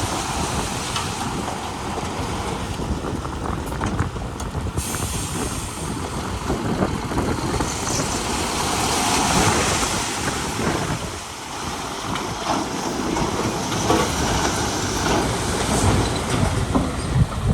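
Heavy earthmoving machinery working, a diesel engine running under dense metallic clanking and rattling that goes on without a break.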